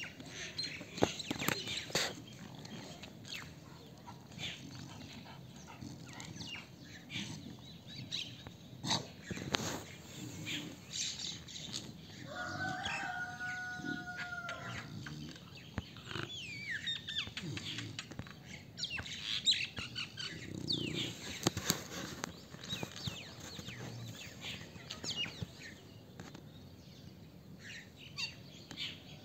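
Birds chirping in short scattered bursts, with scattered clicks and rustles. About halfway through there is one longer pitched call lasting about two seconds.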